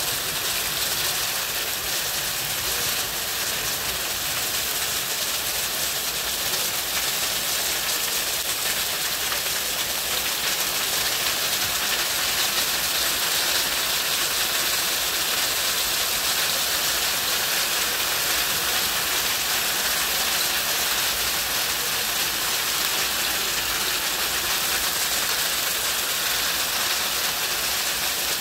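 Hail pelting a wooden deck, its railing and the shingle roof beside it: a dense, steady hiss of countless small impacts that doesn't let up.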